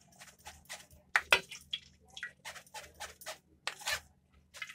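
A spoon rubbing and pressing blended beetroot and carrot pulp through a strainer to squeeze out the juice. It makes short, irregular wet scraping strokes, about three or four a second.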